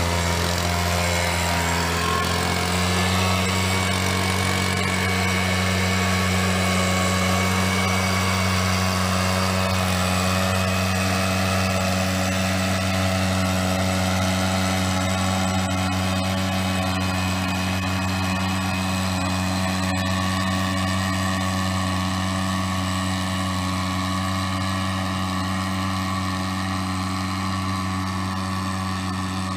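Backpack mist-blower's small two-stroke engine running steadily at working speed while it blows granular fertiliser out through its tube, with a small shift in pitch about two to three seconds in. It grows slightly fainter near the end.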